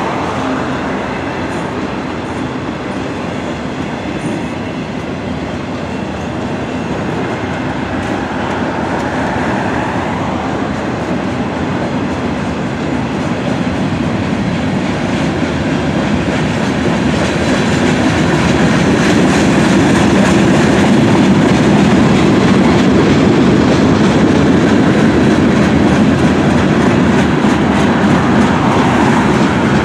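Freight cars of a long mixed freight train (autoracks, covered hoppers, boxcars) rolling past, steel wheels rumbling on the rails in a steady noise that grows louder about halfway through.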